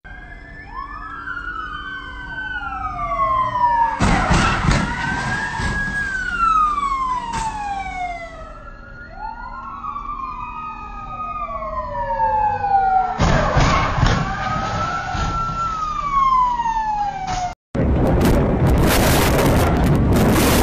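Two police sirens wail over each other, rising and falling, with a loud crash of colliding vehicles about four seconds in. The same siren-and-crash sequence plays again, crashing about thirteen seconds in. After a sudden cut near the end comes a loud, steady rush of wind and road noise from a police cruiser running at over 100 mph.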